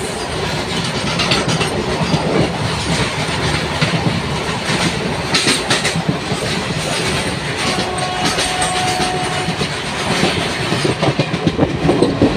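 Train coaches rushing past close alongside on the adjacent track, heard from the open window of a moving train: a loud, steady rush of air with clattering wheels on rail joints.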